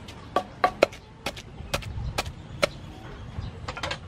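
Wooden pestle pounding a wet chili, garlic and sugar paste in a large wooden mortar: dull wooden knocks, about two a second and unevenly spaced, with a quick cluster near the end.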